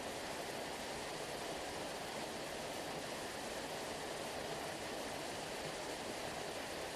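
Steady, even rushing of water, presented as the sea sounding like a waterfall. There are no separate wave surges, just a constant hiss-like wash.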